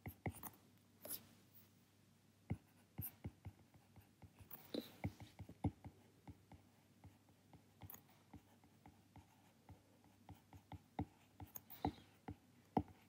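Faint, irregular taps and light scratches of a stylus on a tablet screen during handwriting.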